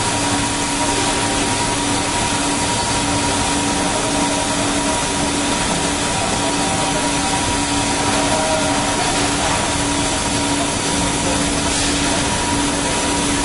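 Cutting torch of a Kaltenbach WBZ 1500 plate profiling machine cutting a circle in steel plate: a steady, loud hiss with a constant low hum and a fainter higher tone running through it.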